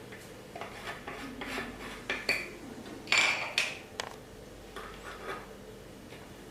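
Hard microscope parts being handled and fitted together: a run of irregular clicks, clinks and short scrapes, loudest about three seconds in.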